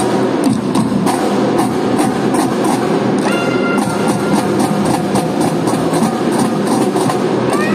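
Children's drum band playing: marching snare drums and bass drums beating a fast, dense rhythm. Short melodic notes come in about three seconds in and again near the end.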